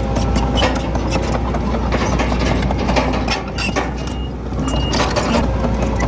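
Komatsu D31PX crawler bulldozer's diesel engine running steadily under a constant clatter of clanks from its steel tracks and the rock and soil it pushes. It eases off briefly a little past halfway.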